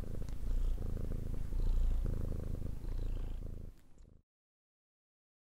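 Cat purring, a low rumble that swells and dips about once a second with its breathing, stopping about four seconds in.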